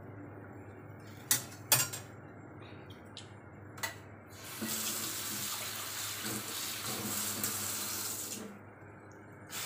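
A few light knocks, then a kitchen tap runs steadily for about four seconds, starting about four and a half seconds in and stopping near the end.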